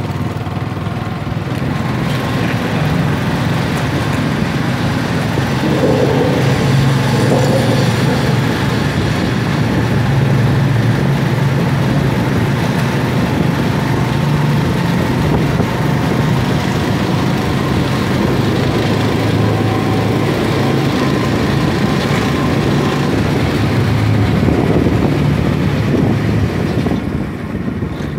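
Motorcycle engine running steadily as the bike rides through a road tunnel, with road and wind noise. The sound grows louder about two seconds in, as the bike enters the tunnel, and drops near the end as it comes out.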